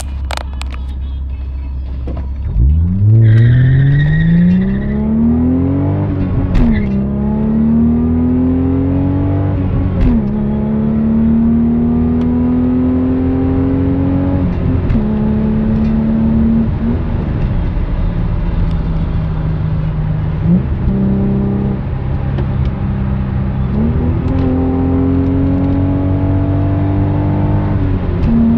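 Honda Legend KA7's V6 through a full Magnaflow exhaust, heard from inside the cabin: idling, then accelerating hard with the pitch climbing through two quick gear changes, then running steadily at high speed with the pitch rising slowly and climbing again near the end.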